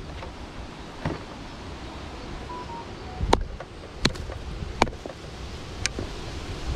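Handling noise from a caught trout, a landing net and tackle: about six sharp clicks and knocks spread out, the loudest a little past the middle, over a low background rumble.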